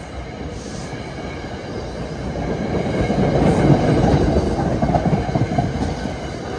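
NJ Transit passenger coaches rolling past close by: a steady rumble of steel wheels on the rails that swells to its loudest about three to five seconds in, then eases off.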